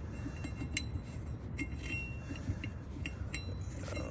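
Small metal parts clinking against a minibike's steel wheel rim and hub: a string of light taps, one ringing on briefly about two seconds in, over a steady low rumble.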